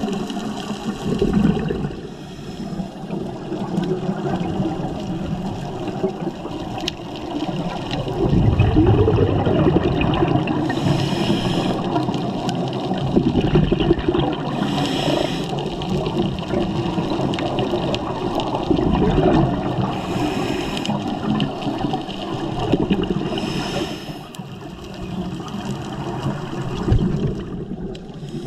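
Scuba diving heard underwater: a diver's exhaled bubbles gurgling and churning steadily, with a short high hiss four times in the middle stretch, the regulator as breaths are drawn.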